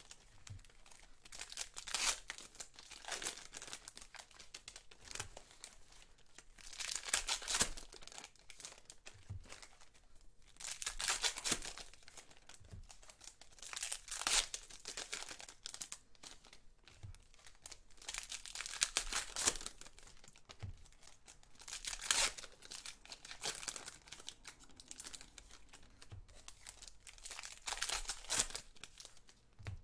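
Foil wrappers of 2018 Panini Contenders football card packs being torn open and crinkled by hand, in bursts every few seconds.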